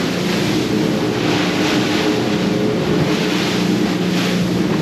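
Outboard engines of a Sea Hunt Gamefish 30 running steadily at cruising speed, a constant drone under the rushing of water along the hull and wind.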